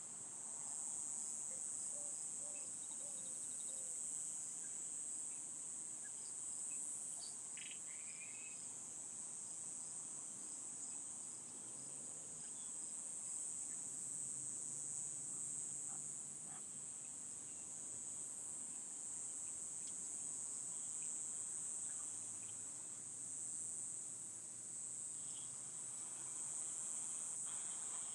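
Crickets chirping in a steady, unbroken high-pitched chorus, with a few faint bird calls.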